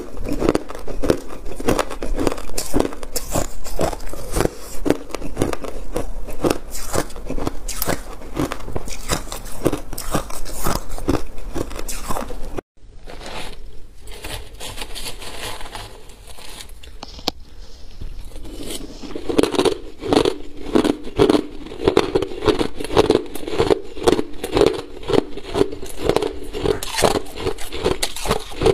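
Close-up chewing of ice: rapid crisp crunches, several a second, as mouthfuls of shaved and crushed ice are bitten and chewed. After a short break about halfway through, a metal spoon scrapes through crushed ice in a plastic bowl, then the steady chewing crunches resume.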